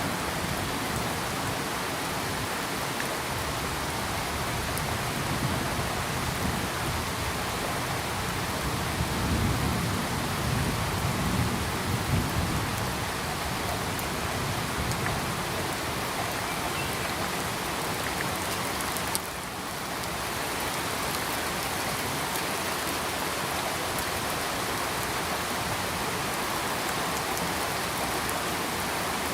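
Steady heavy rain falling, with a low rumble of thunder swelling about ten seconds in. The rain sound drops suddenly for a moment about two-thirds of the way through, then comes back.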